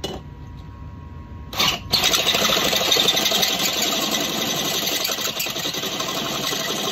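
Craftsman cordless drill turning a Klein step bit in the metal of a hitch receiver, enlarging the pin hole toward 5/8 inch. A short burst about a second and a half in, then a long steady run of motor whine and metal cutting that stops suddenly at the end.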